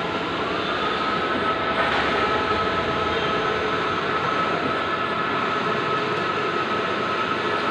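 Bluewin large-format outdoor digital printer running: a steady mechanical whir with a high whine that rises slightly in pitch about half a second in, and a single click about two seconds in.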